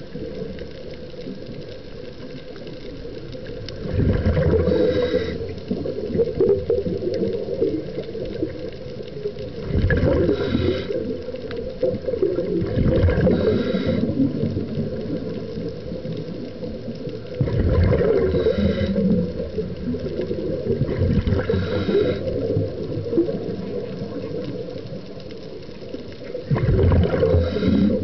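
Scuba diver's breathing underwater: bursts of exhaled bubbles gurgling every three to six seconds over a steady watery hiss.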